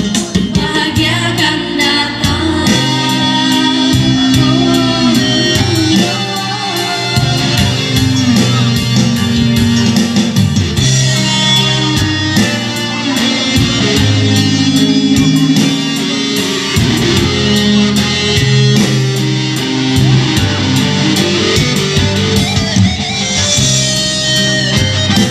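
Two young female voices singing into microphones over live electronic keyboard accompaniment, amplified through stage PA speakers.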